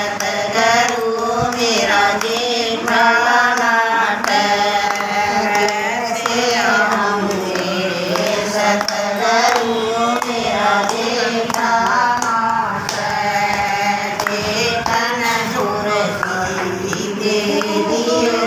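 A group of women singing a Hindi devotional bhajan together in unison, with hand claps keeping time.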